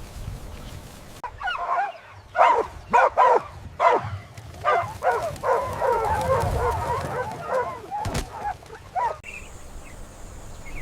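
Animal calls: a run of short pitched cries starting about a second in, then a denser flurry of overlapping calls, and a last short call near the end.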